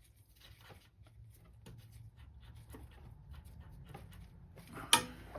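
Quiet handling of tools and metal parts, with faint scattered clicks over a low steady hum, then one sharp metallic clink near the end.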